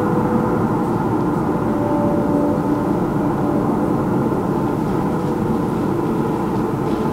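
Recorded sound-art excerpt played over loudspeakers in a hall: a dense, steady drone with a few held tones drifting in and out.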